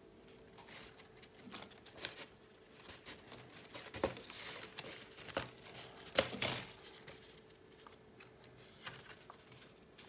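Handling noise as a leafy lemon cutting is moved about: irregular rustling and crinkling with scattered sharp clicks and knocks, the loudest about four and six seconds in.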